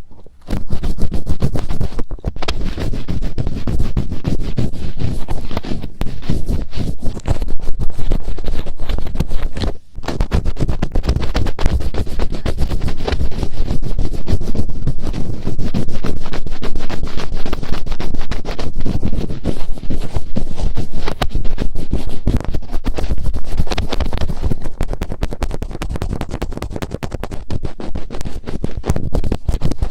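Fingertips rubbing and scratching on the ears of a binaural microphone, in close, dense crackling rubs, with a brief break about ten seconds in.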